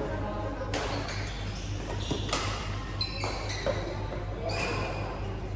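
Badminton rackets striking a shuttlecock during a doubles rally: several sharp, echoing hits a second or less apart, over a steady low electrical hum.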